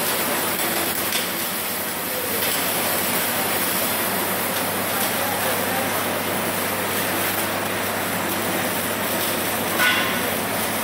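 Steady hiss of MIG welding arcs running in several booths of a busy welding shop, with a brief sharp clack about ten seconds in.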